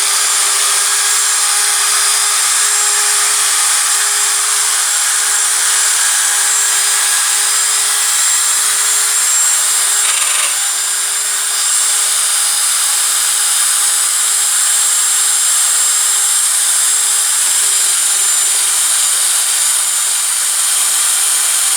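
Milling cutter running on a lathe and cutting a keyway slot in metal: a continuous high-pitched cutting noise over a steady motor hum, easing briefly about halfway through.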